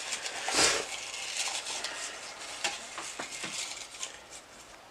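A short breathy burst of noise about half a second in, then scattered light clicks and rustles of a hand rummaging through a container of folded paper slips.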